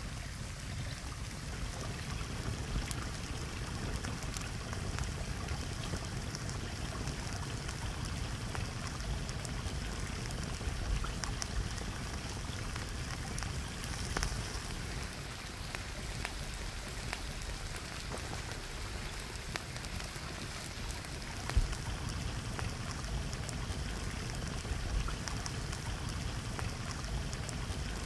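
Béchamel and melted cheese over ham hocks sizzling and bubbling in a hot clay dish beside embers: a steady hiss full of small crackling pops.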